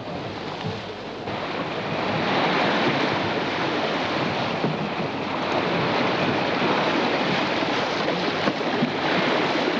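Wind and breaking sea around a yacht sailing in a gale: a steady rushing noise that swells about a second or two in, with wind buffeting the microphone.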